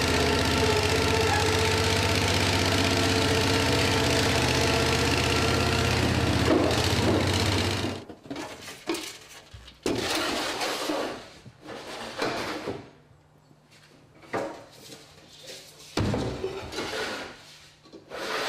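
The small engine of a Dando Terrier crawler-mounted drilling rig running steadily, then cutting off about eight seconds in. After that, a string of short knocks, clunks and scuffs from footsteps and gear being handled.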